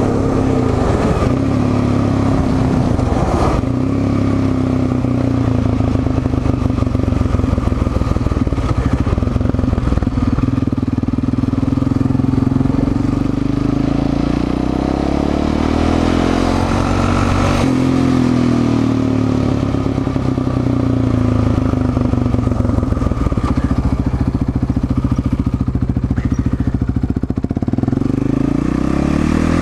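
Yamaha Raptor 700 quad's single-cylinder four-stroke engine running under way, its revs rising and falling as it is ridden, climbing again near the end.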